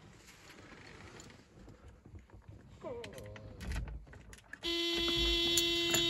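A steady electric buzz switches on sharply about four and a half seconds in and holds at one pitch, after a few light clicks and handling noises.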